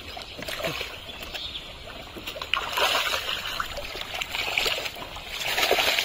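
Thick, wet mud and water splashing and squelching as hands dig and scoop through a muddy pond bed, with two louder bouts of splattering, one in the middle and one near the end.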